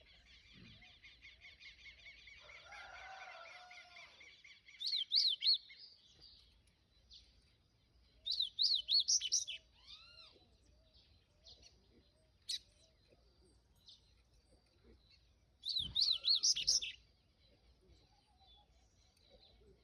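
Papa-capim seedeater singing: a fast trill at the start, then three loud, short phrases of rapid up-and-down whistled notes, with fainter calls from other birds between them.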